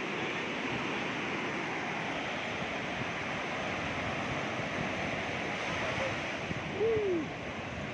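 Sea surf: waves breaking and washing over the sand in a steady rush. Near the end there is one short falling call.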